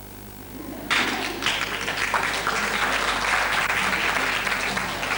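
Audience applauding, beginning suddenly about a second in and continuing steadily.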